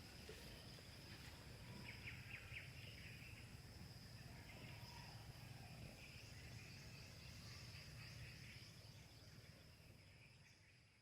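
Faint outdoor farm ambience: a steady high-pitched insect drone with a few short bird chirps about two seconds in. It fades down near the end.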